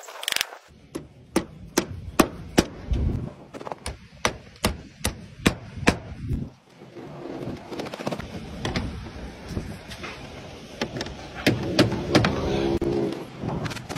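Hammer blows on a slate roof, nailing slates in place: a run of sharp knocks about two a second, a pause, then another run of blows. A brief scraping sound comes near the end.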